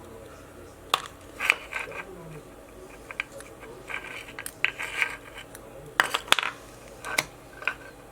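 Sharp clicks and small clattering knocks of hard plastic and metal as a spider-type anti-theft alarm tag is handled and worked on, about eight separate strikes, the loudest a little after six seconds in.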